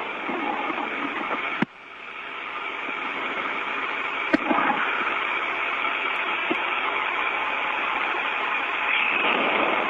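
Steady static hiss of an open air-to-ground radio channel with no one talking. A click about a second and a half in is followed by a sudden drop in the hiss, which builds back over the next couple of seconds; a second click comes near the middle.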